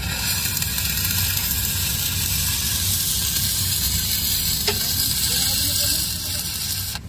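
Stick (shielded metal arc) welding arc burning with a steady hiss as a tack weld is laid in the root gap of a 10-inch pipe-to-tee fit-up; the arc stops abruptly about seven seconds in.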